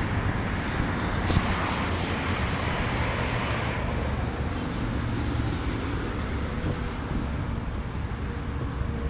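A car's engine and road noise with wind buffeting the microphone, swelling briefly with a louder hiss about one and a half to four seconds in.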